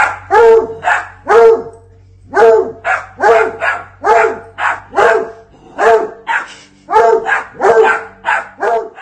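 A dog barking over and over, about two barks a second, in quick runs with short pauses between them.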